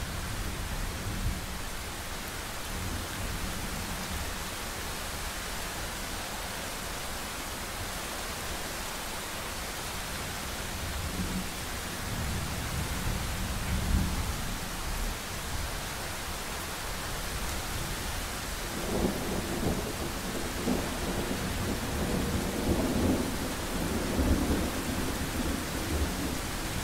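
Thunderstorm: steady rain hiss with rolling thunder, one rumble about halfway through and a longer, louder spell of rumbling in the last third.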